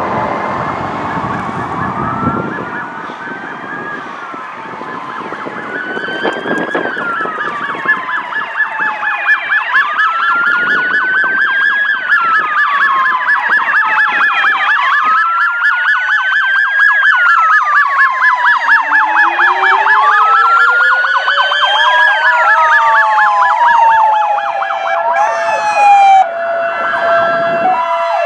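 Several emergency-vehicle sirens sounding at once as a parade of fire trucks and police vehicles passes: a fast electronic yelp, slow rising-and-falling wails, and, from about two-thirds of the way in, a mechanical siren winding up in pitch to a steady howl. A low engine rumble sits underneath at the start.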